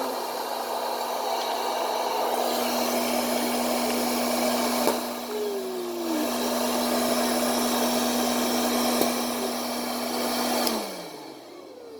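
An electric appliance's motor and fan running steadily, a rushing noise with a steady hum. It is switched off near the end and the hum falls in pitch as the motor winds down.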